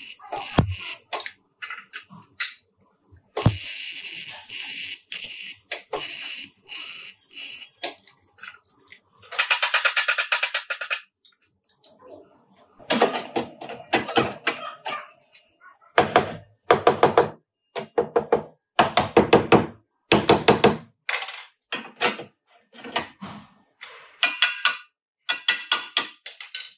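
Auto body repair work: a run of knocks and taps, hissing blasts, and a fast rattling tool for a couple of seconds about nine seconds in, then many short loud strokes.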